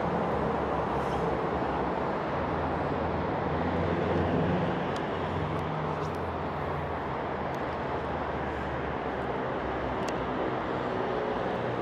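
Steady road traffic noise from vehicles crossing the road bridges and the nearby highway: a continuous rumble of engines and tyres, with a few faint ticks.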